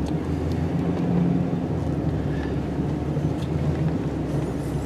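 Plow truck's engine running steadily at low speed while it moves snow, heard from inside the cab, swelling slightly about a second in.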